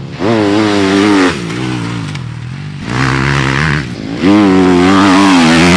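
Motocross bike engine revved in three surges, each a rising then falling pitch, near the start, about three seconds in and again just after four seconds.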